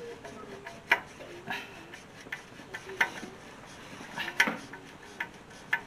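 Scattered sharp metallic clicks and taps from a small screwdriver working the screws on a Honda EB5000 generator's slotted end cover. The loudest click comes about four and a half seconds in.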